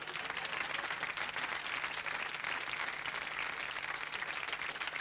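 Audience applauding, a dense, even clapping of many hands.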